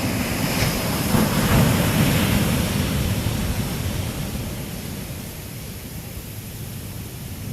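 Large ocean waves breaking on the shore, the surge loudest in the first couple of seconds and then slowly dying away as the water washes out.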